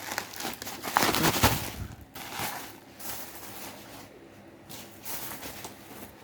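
Plastic packaging crinkling and rustling as a boxed laptop cooling pad is handled, loudest about a second in, then fading to lighter rustles.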